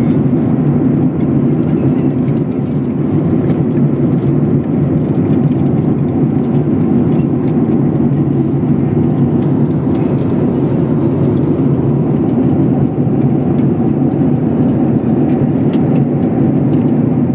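Steady drone of a Boeing 737 airliner heard from inside the passenger cabin: the jet engines and airflow make an even, unchanging noise.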